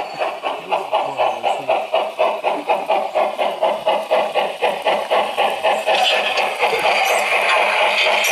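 Live-steam model locomotive chuffing steadily at about four beats a second as it runs along the track. About six seconds in, the beats merge into a steadier hiss, with a few sharp ticks near the end, as it comes close.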